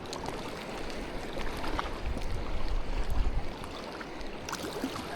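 Wind rumbling on the microphone over a steady wash of shallow water, a little stronger for a couple of seconds in the middle.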